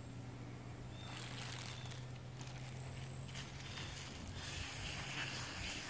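Quiet outdoor ambience: a steady low hum, a couple of faint bird chirps, and a soft hiss that swells near the end, along with faint squishing from a plastic squeeze bottle of tie-dye being pressed onto a bound T-shirt.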